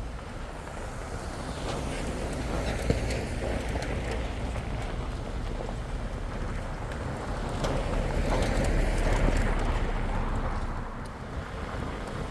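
Jeep driving on an off-road trail: a steady low rumble with tyre noise and scattered small clicks and crunches, swelling louder a little past the middle before easing off near the end.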